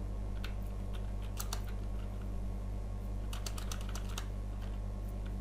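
Computer keyboard keystrokes, irregular single taps and short runs of a few keys, as numbers are typed into spreadsheet cells, over a steady low hum.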